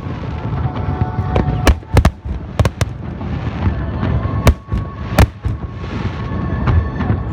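Aerial fireworks bursting: about half a dozen sharp bangs over a continuous rumble and crackle of shells.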